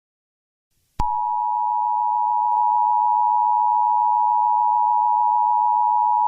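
Electronic alert tone: after silence, a single high steady beep switches on abruptly with a click about a second in and holds at one pitch. This is the attention tone that marks the start of an emergency broadcast message.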